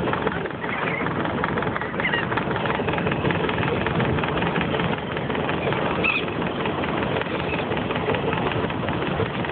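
Steady rushing noise of wind and sea on an open boat, with a couple of short high gull calls about two and six seconds in.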